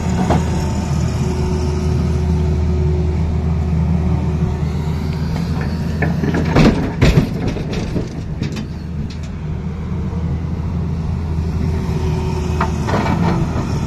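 Tata Hitachi Zaxis 220 excavator's diesel engine running steadily under hydraulic load. About seven seconds in, a loud clatter of stones tipped from the bucket into the truck's steel body, with a few smaller knocks after it, and a shorter rattle of rock near the end.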